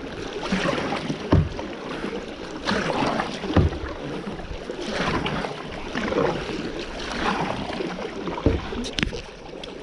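Kayak paddle strokes splashing through the water in a regular rhythm, with a few short low thumps in between.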